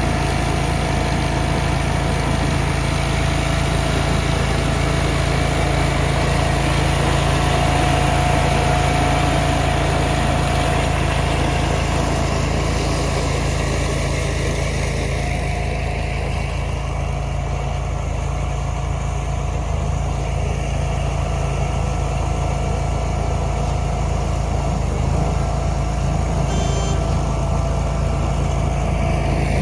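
An engine running steadily at idle, with an even, unchanging drone.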